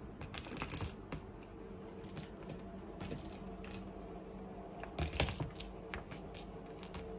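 Light, irregular clicking and rattling of a kitten's claws and a small plastic ball knocking against a plastic basket as the kitten plays, with louder flurries just under a second in and about five seconds in.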